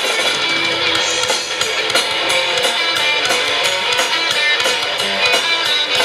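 Live rock band playing: amplified electric guitars with bass guitar and a drum kit.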